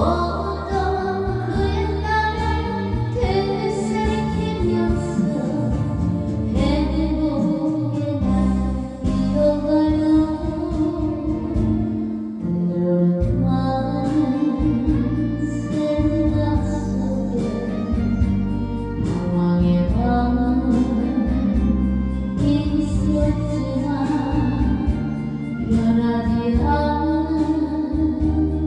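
Korean trot song: a woman singing a slow, plaintive melody over a backing track.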